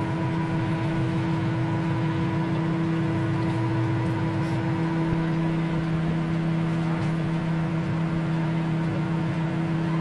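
Hamilton Beach microwave oven running with a steady hum while it heats a kettle of water.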